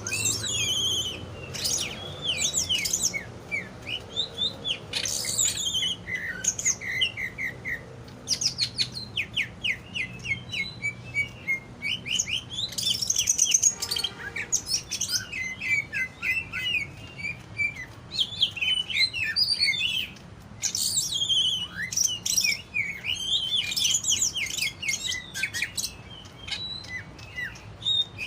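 Cucak ijo (green leafbird) singing a fast, varied song of high chirps, quick trills and whistled phrases, almost without pause, in the energetic style bred into a 'fighter' songbird.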